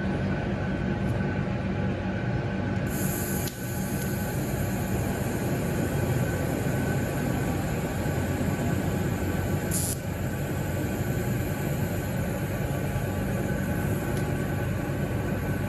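TIG torch fusing a tack on 316L stainless pipe: the arc strikes about three seconds in with a brief burst of high hiss, then hisses faintly, with a second short burst near ten seconds. Under it runs a steady rumble and hum of shop machinery.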